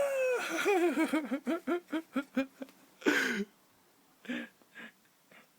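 Baby laughing: a high-pitched squeal that rises and falls, then a quick run of giggles about six a second, then a louder short squeal about three seconds in, with a few faint giggles after.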